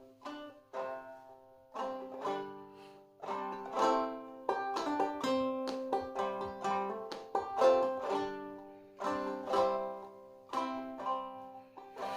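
Clawhammer banjo playing an instrumental introduction: a run of plucked notes that ring on, in short phrases.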